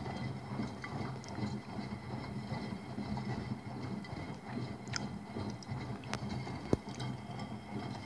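Front-loading washing machine running an empty cleaning wash: the drum turns and water sloshes and churns inside it over a steady low motor hum. One sharp click near the end.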